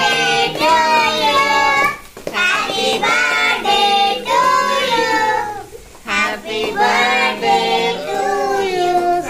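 A child singing, in three sung phrases with long held notes and short breaks about two and six seconds in.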